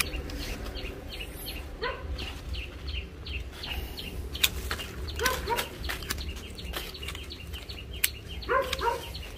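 Pruning shears snipping custard apple branches: sharp clicks about four and a half seconds in and again near the end. Birds call a few times in the background.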